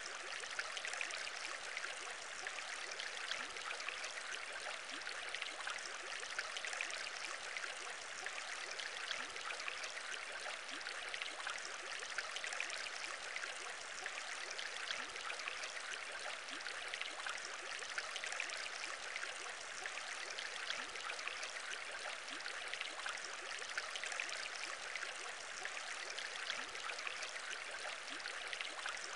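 Aquarium bubbling: a dense, steady stream of small air bubbles fizzing and popping at an even level throughout.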